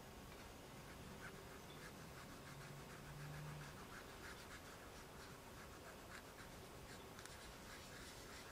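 Faint scratchy scrubbing: a tiny kitchen sponge rubbed against a miniature pot in quick repeated strokes. A brief faint low hum comes about three seconds in.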